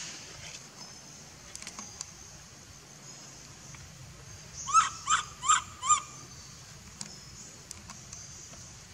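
Four short, high-pitched animal calls in quick succession about five seconds in, each rising then falling in pitch, over a steady high hiss.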